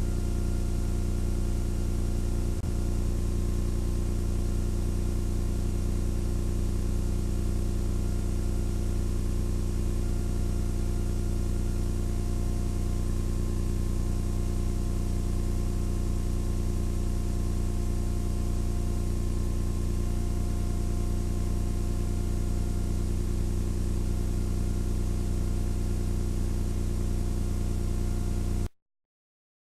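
Steady low machine hum with several constant tones over a hiss, recorded on the soundtrack of deep-sea ROV survey footage. It stops abruptly near the end.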